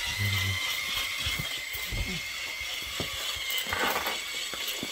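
Toy Gatling-style foam-dart blaster being worked by hand, its mechanism giving irregular clicks and ratcheting, over a steady high-pitched whine.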